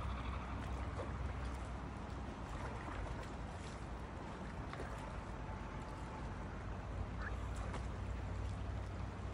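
Steady rush of a muddy river flowing past a pebble bank, over a low, even rumble.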